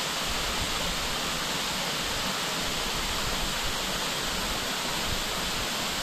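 Waterfall: a steady, even rush of falling water with no breaks.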